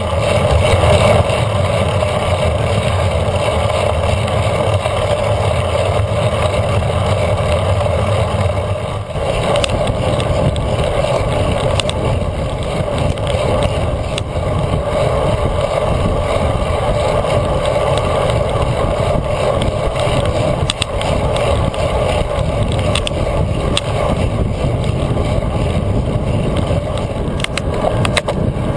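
Wind rushing over a bike-mounted action camera's microphone, mixed with tyre and road noise from a road bike riding at speed. The sound is steady, shifting in tone about nine seconds in.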